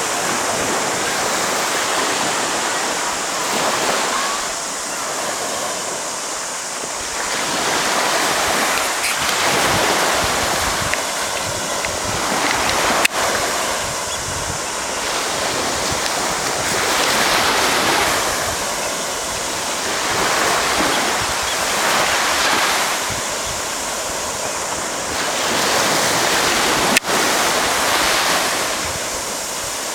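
Surf breaking on a beach, the rush of the waves swelling and easing every few seconds. Two sharp clicks cut through, about a third of the way in and near the end.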